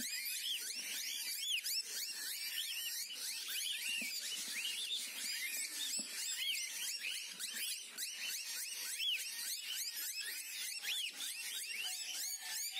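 A flock of cockatiels chirping and calling together, many short rising-and-falling chirps overlapping in a constant chatter.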